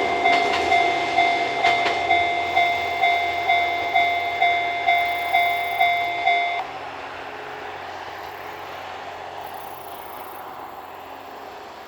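Japanese level-crossing alarm bell ringing about twice a second, with a few wheel clicks from the passing train in the first two seconds. The alarm cuts off about six and a half seconds in, leaving the fading rumble of the departing train.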